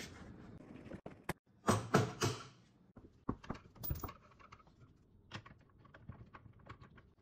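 Scattered knocks and clicks of workshop handling: a table-saw extension table being set down on its support brackets and a screwdriver working at its adjustment screw from underneath. The loudest are three knocks close together about two seconds in.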